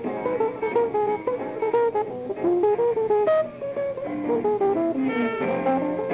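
Live 1954 jazz trio recording: an electric archtop guitar plays a quick single-note melody line, with fuller sustained chords coming in about five seconds in.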